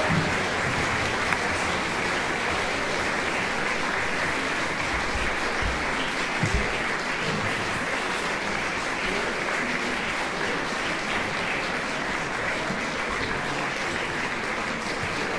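Audience applauding steadily, a dense, even clapping that keeps up throughout.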